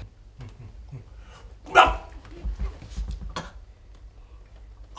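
One short, loud cry about two seconds in, followed by a few softer short sounds, with light clicks of chopsticks against a small cup.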